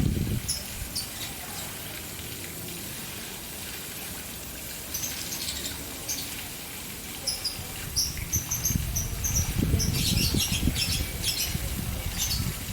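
Fountain water splashing steadily, louder in swells near the start and again from about eight seconds in, with caged birds giving many short, high chirps that are busiest around ten seconds in.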